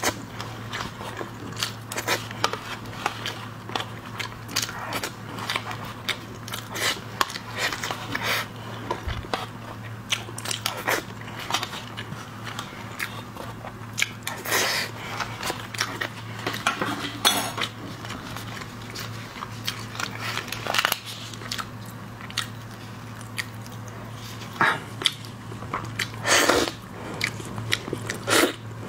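Close-miked eating: wet mouth smacks and clicks, many short ones in a row, as spoonfuls of sea urchin roe are eaten. Near the end come louder crackles as a raw shrimp's shell is peeled. A steady low hum runs underneath.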